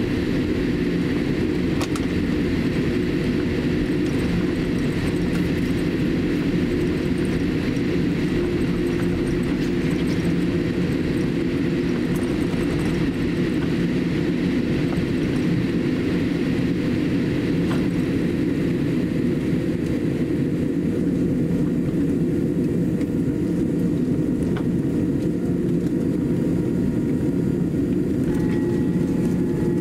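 Steady low rumble inside the cabin of a Boeing 787-8 airliner taxiing on the ground, with a few faint clicks. Near the end a cabin chime rings.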